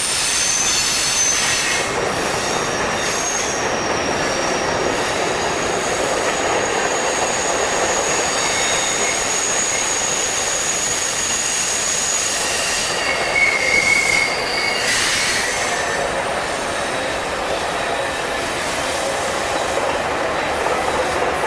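Freight cars of a long mixed freight train rolling past on steel wheels, a steady rumble with thin, high flange squeals from the wheels that come and go.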